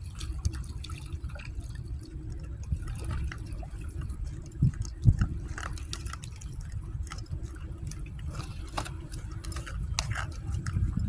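Water sounds: liquid dripping and sloshing over a steady low rumble, with scattered small clicks and two louder thumps about halfway through.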